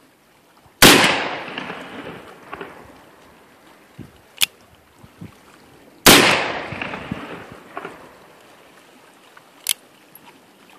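Two shots from a .36 Uberti 1851 Colt Navy replica cap-and-ball revolver loaded with 20 grains of Pyrodex, about five seconds apart, each report dying away over a second or so. Fainter sharp metallic clicks from the revolver's hammer come between the shots and again near the end.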